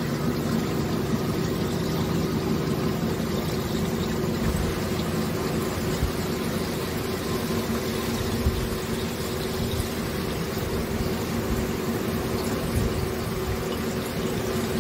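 Chevrolet Avalanche V8 running at a steady idle while its transmission pump pushes red automatic transmission fluid out of a metal line, splashing into a plastic jug. The old fluid is being drained from the torque converter.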